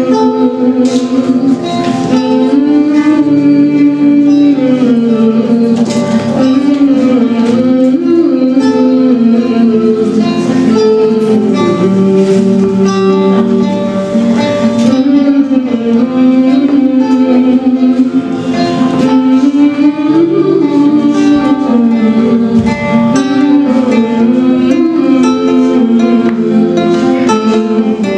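Acoustic guitar playing, with a wavering, gliding sung melody carried over it.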